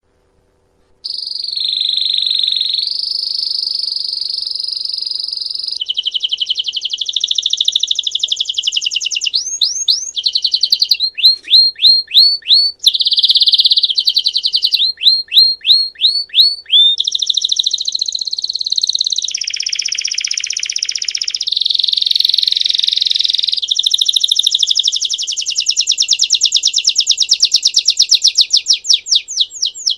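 Belgian canary singing its 'campainha' (bell) song. It starts about a second in and runs on as a continuous chain of fast trills and rolls that change every few seconds, with runs of quick rising chirps in the middle.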